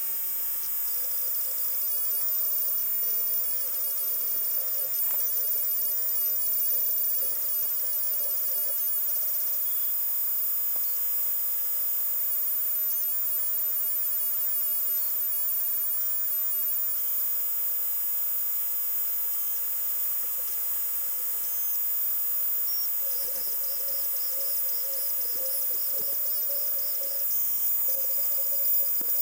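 3040 desktop CNC router running through a peck-drilling and milling cut, heard in time lapse: a steady high hiss with a wavering hum. Fast high ticking comes in the first several seconds and again near the end.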